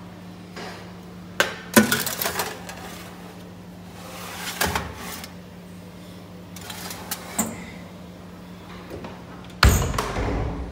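Metal oven tray lined with crinkling aluminium foil sliding onto the oven rack, with several sharp metal clanks of tray and rack, over a steady low hum. A louder bang near the end as the oven door is shut.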